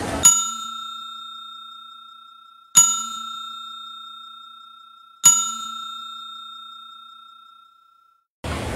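A bell-like chime struck three times, about two and a half seconds apart, each strike ringing out and slowly fading, with nothing else audible behind it.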